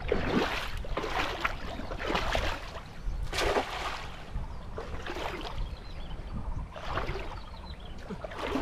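Shallow river water splashing and sloshing in irregular bursts as someone wades through it, with a sharper splash about three and a half seconds in.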